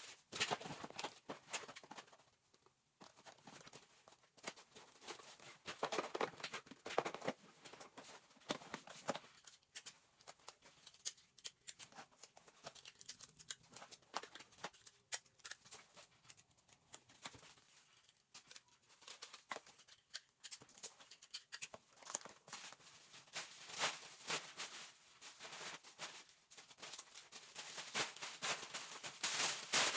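Irregular rustling and crinkling with scattered small clicks and taps: things being handled close by.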